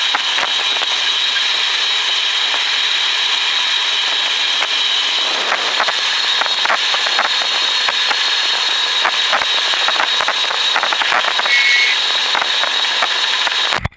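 Steady road and wind noise inside a moving car, heard as a loud hiss with a steady high whine and scattered clicks. It cuts off abruptly just before the end.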